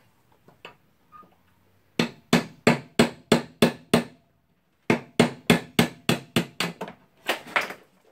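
Hammer blows driving the ball bearing off a cordless drill motor's armature shaft. They come as sharp strikes about three a second in two runs of around seven, with a pause of about a second between them, then a last pair near the end.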